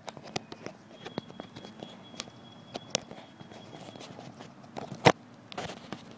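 Handling noise from an iPhone being fitted back into its plastic OtterBox case: scattered clicks and knocks close on the microphone, with one sharp click about five seconds in.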